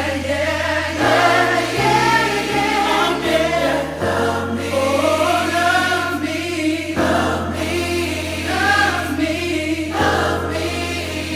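R&B song with layered, choir-like backing vocals holding long gliding notes over a slow, steady bass line.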